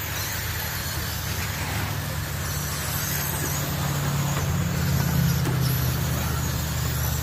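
Radio-controlled Slash short-course trucks racing on a dirt oval: a steady mix of motor and tyre noise that swells as the pack passes close, about two thirds of the way in.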